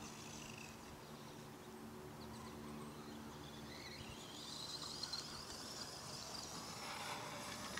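Distant Traxxas Stampede 4x4 RC truck with a 3400kv brushless motor, whining faintly as it drives across grass. The whine rises in pitch about halfway through as the truck speeds up.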